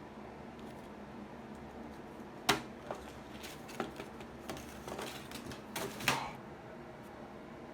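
Irregular sharp clicks and knocks of something being handled, the loudest about two and a half seconds in and a close cluster around six seconds, over a steady low hum.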